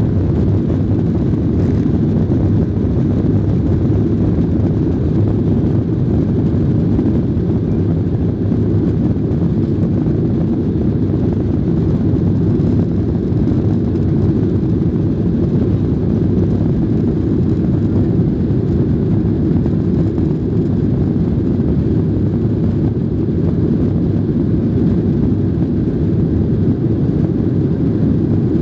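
Boeing jet airliner's engines and airflow heard inside the cabin during the climb just after takeoff: a loud, steady low rumble.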